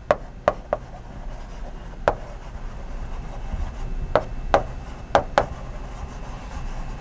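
Chalk writing on a blackboard: about eight sharp taps of the chalk striking the board, some in quick pairs, with faint rubbing between them.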